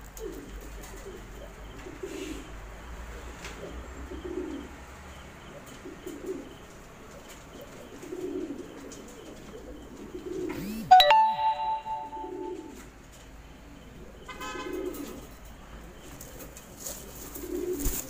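Fancy pigeons cooing, one low coo about every second. About eleven seconds in, a loud bell-like chime rings briefly over the cooing.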